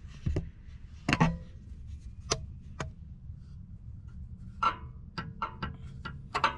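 A steel drift knocking and clinking against the Jeep's lower control arm and its mounting bracket as it is worked through the bolt holes to line them up. The knocks are sharp, irregular and metallic, about nine of them, several ringing briefly, with a quick cluster near the end.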